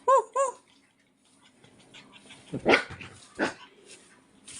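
German Spitz puppies play-fighting: two quick high-pitched yips at the start, then two sharper puppy barks a little past halfway.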